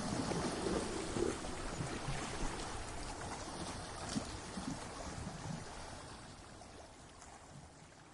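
Ocean surf on rocks: the rushing wash of a broken wave, fading away gradually over several seconds.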